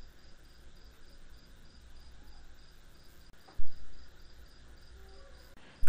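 A cricket chirping steadily in the background, a short high pulse about four times a second. A single sharp knock comes about three and a half seconds in.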